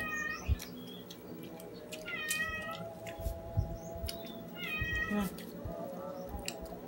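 A cat meowing twice, about two and a half seconds apart.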